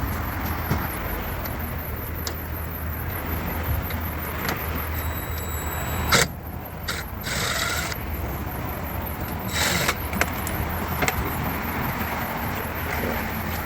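Steady low hum in a workshop, with faint clicks and a few short bursts of noise as screws and bolts are taken out of a car's bumper and headlight mounting.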